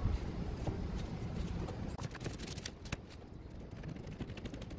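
A steady low outdoor rumble, with scattered light clicks and rustles as a plastic iced-coffee cup and a fork are handled at a table.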